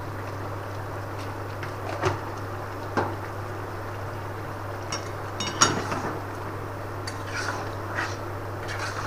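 Metal spatula and spoon clinking and scraping against a steel kadai as sugar is added to chilli chicken and stirred in: a handful of sharp, irregular clinks over a steady low hum.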